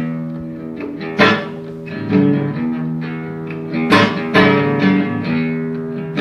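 Guitar playing a blues accompaniment: plucked and strummed chords with sharp attacks and ringing notes, without singing.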